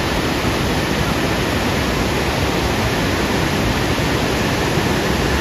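Waterfall's water falling in a steady, unbroken rush.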